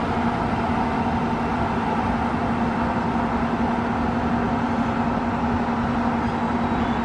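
FS E.402B electric locomotive humming steadily at the head of an Intercity train, with a low held tone under the noise of its auxiliary equipment.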